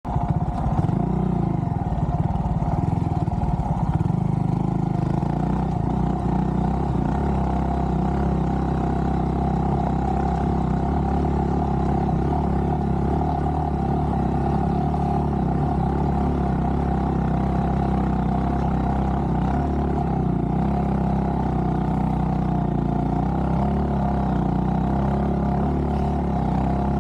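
Honda Monkey 125's single-cylinder four-stroke engine running as it is ridden on a dirt trail, changing pitch in the first few seconds and then holding a steady note.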